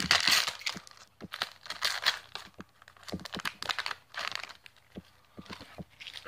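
A Pokémon booster pack's foil wrapper being torn open and crumpled by hand: a run of irregular crinkles and rips, loudest in the first second, thinning out near the end.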